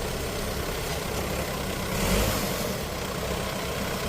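Kubota farm machine's diesel engine running steadily at idle, with a brief louder surge about two seconds in.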